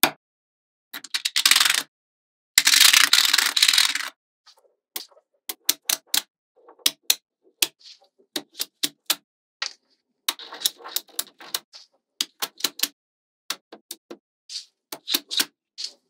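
Small magnetic balls clicking and snapping together as rods and blocks of them are pressed onto a model, in a run of sharp separate clicks. About three seconds in comes a longer, louder clattering rattle of many balls knocking together.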